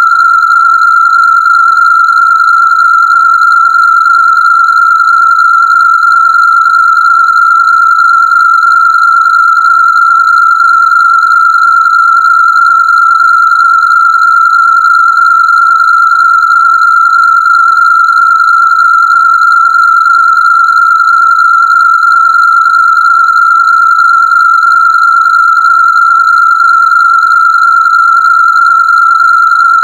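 A steady, loud, high-pitched electronic test tone from a Rife frequency generator, held at one pitch without a break.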